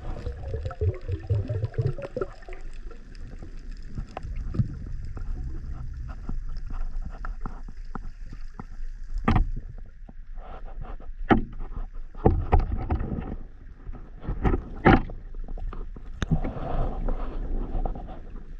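Sea water sloshing and splashing, broken by several short sharp knocks.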